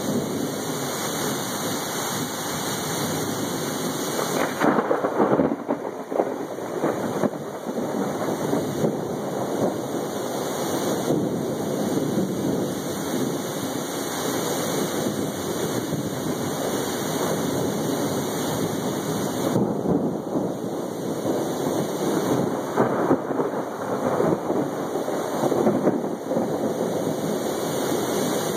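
Heavy rain falling steadily while thunder rumbles, swelling louder about five seconds in and again later on.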